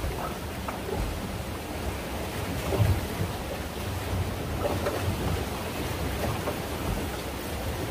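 Wind rumbling on the microphone over the wash of open-sea waves around a small fishing boat, a steady low rumble.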